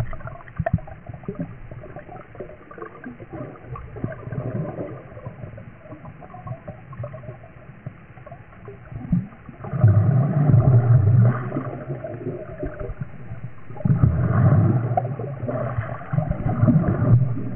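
Low, muffled underwater rumbling and gurgling that grows louder about ten seconds in and swells again near the end.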